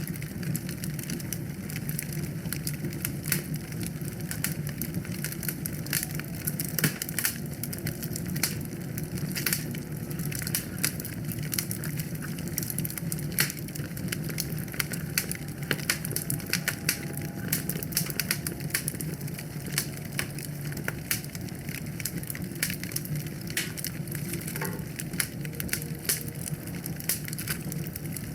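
Wood fire burning in a fireplace: dense, irregular crackles and pops over a steady low rush of the flames.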